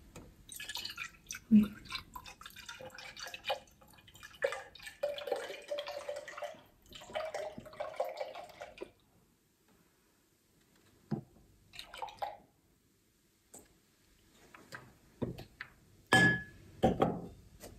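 Cold milk glugging and splashing as it is poured from a carton into a glass measuring jug for about nine seconds, then a few light clicks. A louder clatter comes near the end.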